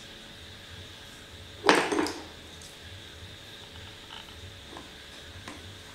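A short clatter of metal parts being handled, about two seconds in, followed later by a few faint clicks.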